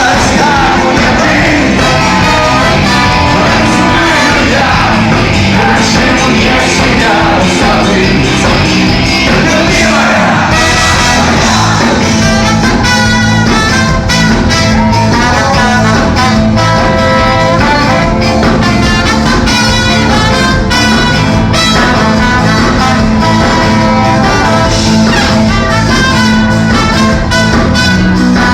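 Live band playing a rock song with vocals and brass, loud and continuous.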